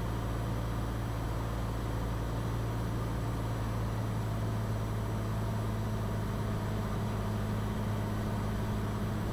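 Steady drone of a Cirrus SR20's single piston engine and propeller heard inside the cockpit, holding an even, unchanging pitch.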